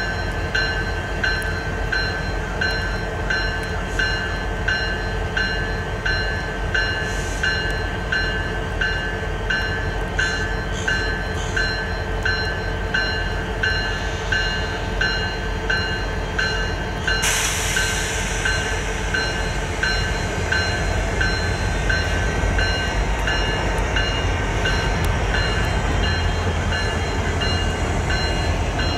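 A bell ringing at a steady beat of about one and a half strokes a second over a low rumble. The bell stops about seventeen seconds in, and a steady hiss starts at the same moment.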